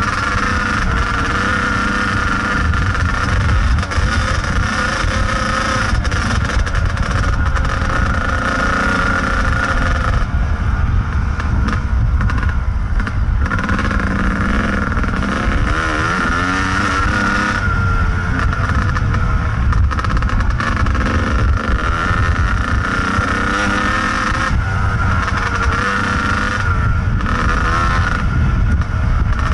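Kawasaki KDX220 two-stroke single-cylinder dirt bike engine running under way, heard from the rider's helmet camera; the revs rise and fall with the throttle, easing off briefly about a third of the way in and again shortly after.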